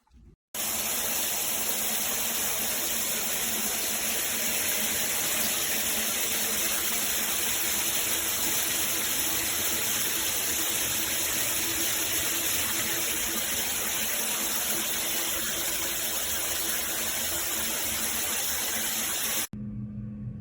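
Rainfall shower head spraying a steady stream of water. The spray starts abruptly about half a second in and cuts off just before the end.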